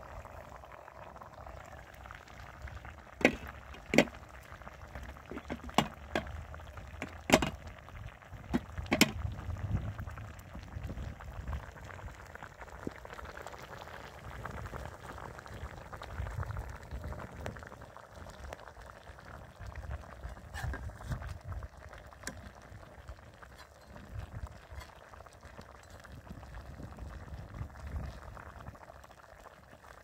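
Fish-head stew simmering in a steel wok over a wood fire, the broth bubbling steadily. A handful of sharp clicks come in the first ten seconds.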